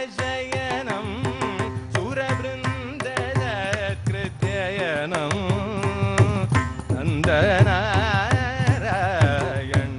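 Male voice singing a Carnatic kriti in raga Varali, with ornamented, sliding pitch, accompanied throughout by a mridangam's rapid strokes over a tanpura drone.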